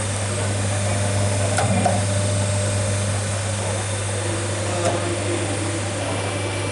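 A steady low mechanical hum with hiss, broken by a few faint light clicks.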